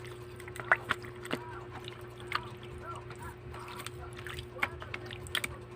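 Scattered light clicks and wet sloshing as raw chicken fillet is handled in a bowl while it is seasoned, over a faint steady hum.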